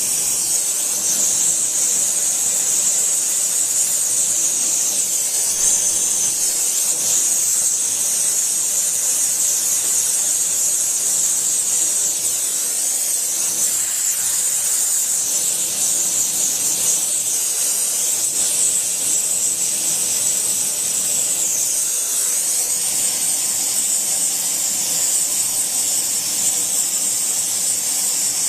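Steady high-pitched hiss of a flame lighting diesel fuel poured into the Farmall F20's open cylinders, a fire set to free the stuck pistons.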